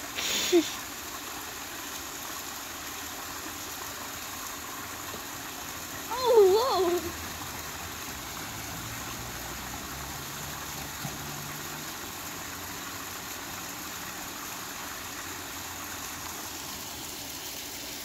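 Water from a backyard rock waterfall pouring steadily over the stones. About six seconds in there is one loud, short vocal sound, a whine that wavers up and down in pitch.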